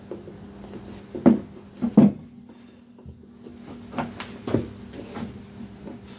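A plastic trim-removal tool knocking and clicking against a motorcycle front fork as a part is pried out: a few sharp knocks, the two loudest a little over a second and about two seconds in, then lighter clicks, over a faint steady hum.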